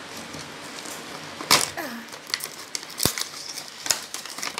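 A cardboard toy box with a clear plastic window being opened by hand: irregular crinkling and rustling of the packaging, with a loud burst of rustling about one and a half seconds in and a single sharp click about three seconds in.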